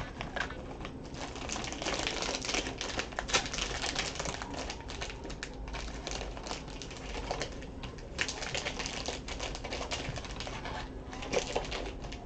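Plastic wrappers of Panini Prizm basketball card fat packs crinkling and tearing as they are worked open by hand: a dense run of crackles with a few short lulls.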